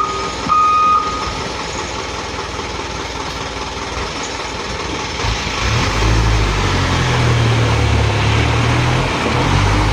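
Diesel engine of a loaded Isuzu dump truck running, working harder from about halfway in with a louder, deep drone. Two short high beeps sound in the first second.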